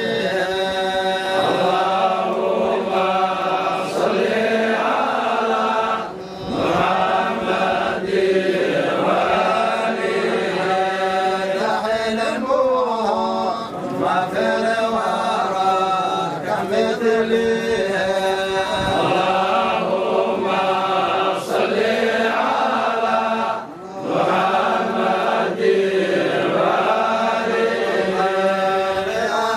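Men's voices chanting a devotional song together, a continuous melodic chant over a steady held note, with brief pauses for breath about six seconds in and again near the end.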